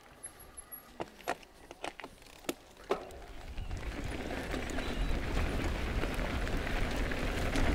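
Cube Stereo Hybrid e-mountain bike setting off down a dirt forest trail: a few sharp clicks and knocks at first, then from about three seconds in a rising rumble of knobby tyres on dirt and wind on the microphone as it gathers speed.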